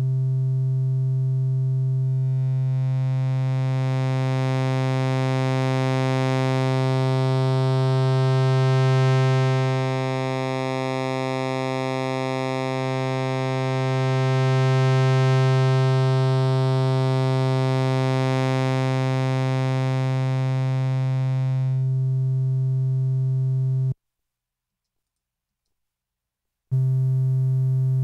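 Omnisphere 2.5's Moog Little Phatty profile playing one held low synth note from a single oscillator, its tone growing brighter and then mellower as the oscillator's wave shape is swept. The note cuts off, and after about three seconds of silence a matching note starts on the hardware Moog Little Phatty.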